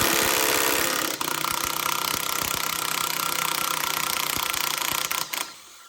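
Power impact wrench hammering away at the nut on a sway bar end link, a rapid steady rattle that runs for about five seconds and then cuts off, while a wrench holds the link's stud from above.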